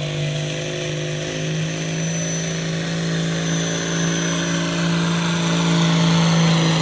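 Turbocharged John Deere farm tractor's diesel engine running hard at steady, high revs under full load while pulling a weight-transfer sled. The pitch holds nearly level and the sound grows gradually louder toward the end.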